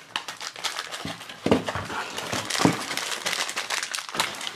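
Crinkling and crackling of a foil blind bag being handled and torn open by hand, with a couple of louder handling knocks.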